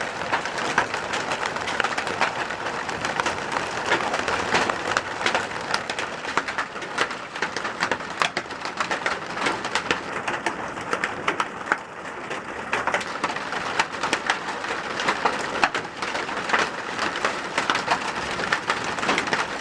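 Large hailstones coming down hard, a dense irregular clatter of sharp impacts over a steady hiss.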